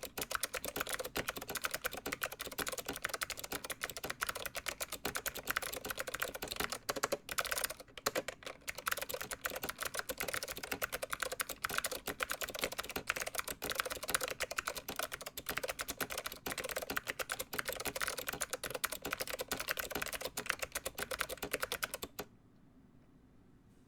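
Fast, continuous typing on a Leading Edge DC-2014 vintage keyboard with SKCM Blue Alps switches, each keystroke a sharp click. There is a brief pause about a third of the way in, and the typing stops shortly before the end.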